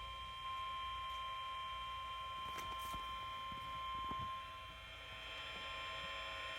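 NOAA Weather Radio warning alarm tone: a single steady high tone near 1,000 Hz held without a break, played through a weather radio receiver. It signals that an alert message is about to be read.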